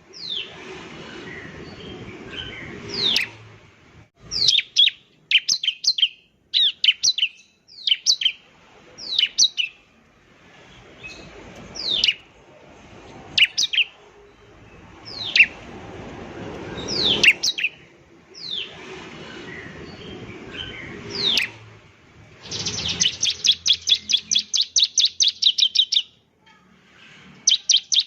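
Bar-winged prinia (ciblek) singing: sharp, falling whistled notes, singly or in quick pairs, then near the end a fast, even rattle of about five notes a second lasting some three seconds.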